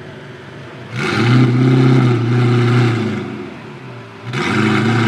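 Sports car engine idling, then revved twice. The first rev comes about a second in, sweeps up and is held for about two seconds before dropping back. The second rev starts near the end.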